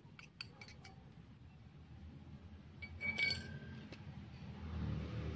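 Light metallic clinks of a miniature wire whisk against a small stainless steel bowl: a few quick taps in the first second, then a brief ringing clink about three seconds in. A low rumble builds near the end.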